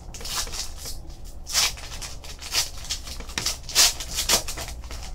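Foil wrapper of a Fleer Retro basketball card pack crinkling as it is torn open by hand, in a run of sharp crackles, the loudest nearly four seconds in.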